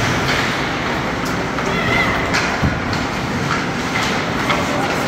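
Ice hockey game heard from the stands: a steady wash of skate blades on ice and arena crowd noise, with scattered sharp clicks of sticks and puck and a few shouting voices.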